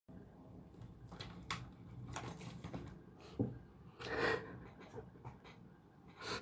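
A person's breathing close to the microphone: a few short, airy exhales, the strongest about four seconds in.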